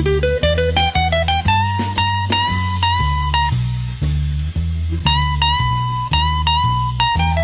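Blues background music: a guitar playing a melody line, some notes held and bent, over a walking bass and a steady beat.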